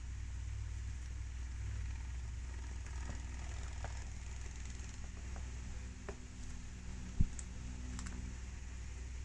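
Guinea pig nibbling at a hanging seed-cake and willow chew toy: scattered small crunching clicks over a steady low hum, with one loud thump about seven seconds in.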